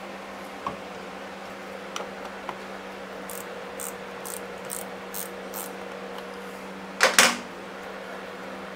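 Steady hum of a shop fan running, with a few small clicks, a run of six short high-pitched rasps at about two a second in the middle, and a loud double knock about seven seconds in.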